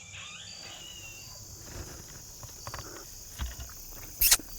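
Steady high-pitched insect buzzing with short repeated chirps, and a few gliding calls in the first second. Near the end come three sharp, loud knocks close together.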